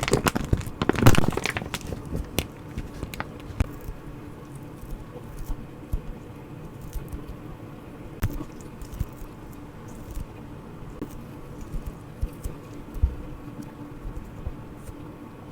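Squishy toy being squeezed and handled for ASMR, with a loud rustling squeeze about a second in, then scattered small clicks and crackles.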